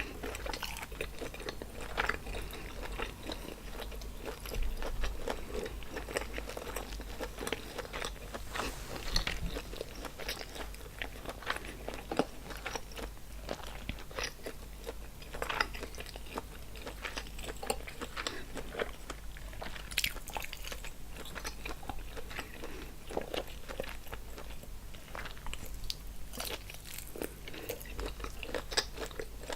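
Close-miked eating: wet chewing, biting and crunching of a seafood boil in sauce, with many irregular sharp mouth clicks and crackles.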